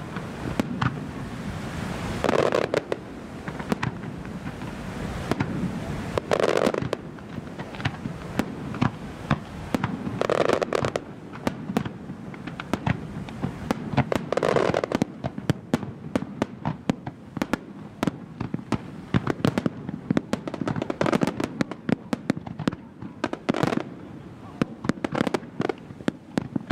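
Professional fireworks display: aerial shells and ground effects bursting in quick succession, a continuous run of sharp bangs and crackles that grows denser in the second half.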